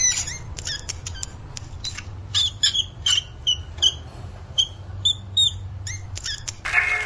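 A small animal's short, high-pitched squeaks or chirps, repeated about once or twice a second, with sharp clicks between them.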